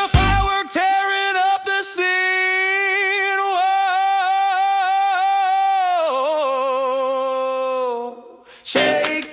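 Music: a wordless sung note held with vibrato and no band under it, stepping down in pitch and fading away. After a brief gap the next rockabilly track starts with full band near the end.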